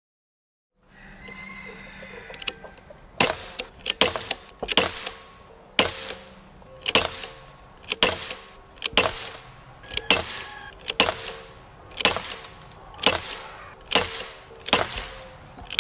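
Daisy Powerline 5501 CO2 blowback BB pistol firing a steady string of shots, about one a second, each a sharp pop that dies away quickly.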